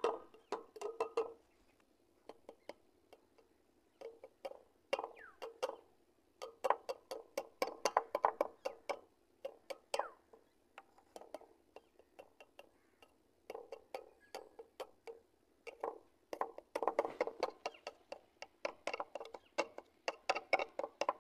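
Small plastic bottles knocking against the rim of an empty metal tin as powdered chemicals are shaken into it: quick runs of light taps, the tin ringing with each one, broken by short pauses.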